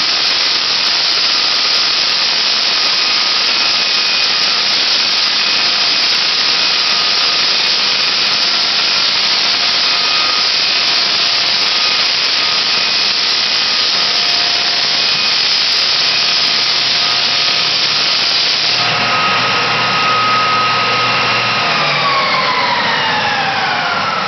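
Floor sander with a dust-extraction hose running on a bare hardwood floor: a loud steady hiss with a faint whine. About 19 seconds in the sanding hiss drops away, and a few seconds later a motor's whine falls steadily in pitch as it winds down.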